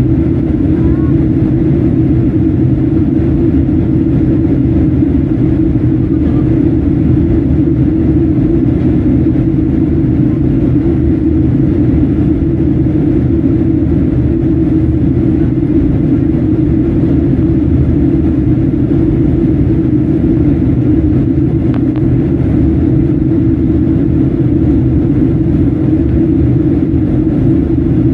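Steady low drone inside the cabin of a Boeing 737 MAX 9 in flight: its CFM LEAP-1B turbofan engines and the air rushing past the fuselage, holding one level without change.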